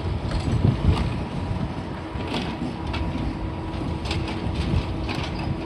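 Heavy demolition machinery, excavators and a concrete crusher, running with a steady low rumble, broken by scattered clanks and knocks of metal and rubble.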